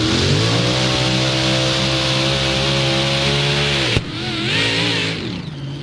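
Mini Modified pulling tractor's engine held at high revs under full load, its pitch climbing at first and then steady; about four seconds in it cuts off sharply with a knock, and the revs fall away unevenly.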